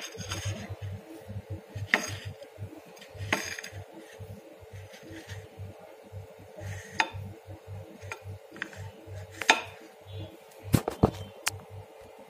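Sparse light clicks and knocks a second or more apart, with a quick cluster of three near the end, over a faint steady hum.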